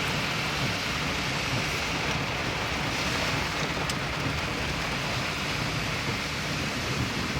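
Heavy rain pouring down on a car, a steady hiss over a low rumble.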